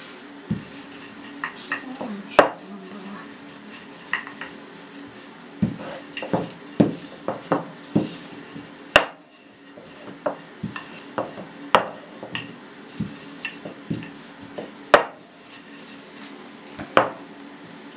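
Wooden rolling pin rolling out dough on a floured stone worktop: irregular knocks and clacks as the pin rolls, is lifted and set back down on the board, a few of them sharp and loud.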